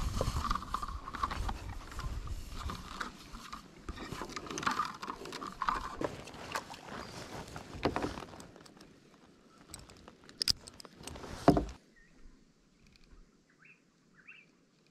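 Fishing gear being handled and cast from a kayak: repeated knocks and clicks against the hull over a steady hiss. The hiss dies away after about eight seconds, and after a sharp knock about two-thirds through it goes nearly quiet.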